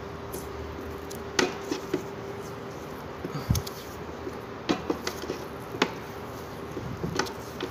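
Electrical tape being pulled off the roll and wound around a spliced wire joint: scattered sharp crackles and ticks over a steady hum.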